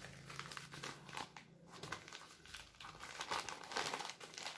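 Plastic wrapping crinkling as it is handled and pulled open by hand, in irregular crackles that get busier about three seconds in.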